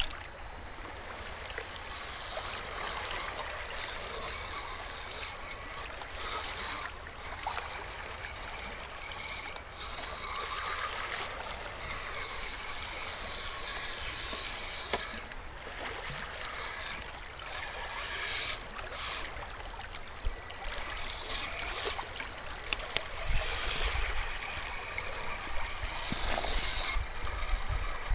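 Shallow water trickling and lapping among shoreline rocks, with the whir of a Losi Mini Rock Crawler's small electric motor and gears coming and going as it climbs.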